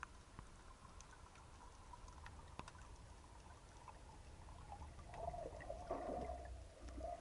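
Faint underwater ambience: scattered small clicks and crackles over a low rumble of water moving around the camera. A faint wavering tone swells about five seconds in and fades near the end.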